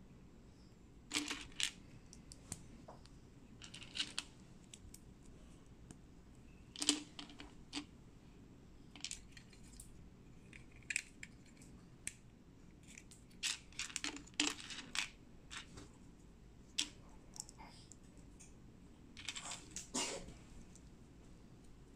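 Small Lego-compatible plastic building bricks clicking and clattering as they are picked from a loose pile and pressed together, in scattered clusters of sharp clicks.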